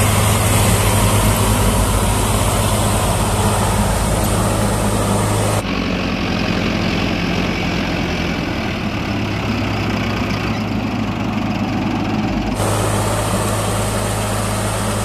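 A 4x4 tractor's diesel engine running steadily. The sound changes abruptly twice, about five and a half seconds in and again near the end.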